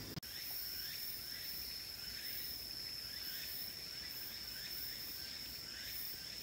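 Woodland insects giving a steady high-pitched trill, with faint short rising chirps repeating about twice a second beneath it. A brief click sounds at the very start.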